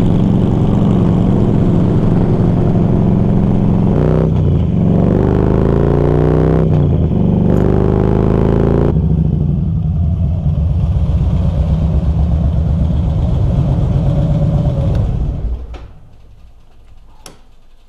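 Harley-Davidson touring motorcycle's V-twin engine, heard through a mic inside a full-face helmet, revving up through the gears with the pitch rising and breaking at each shift, then running more steadily. About fifteen seconds in, the engine sound stops suddenly, leaving a quieter background with a few sharp clicks.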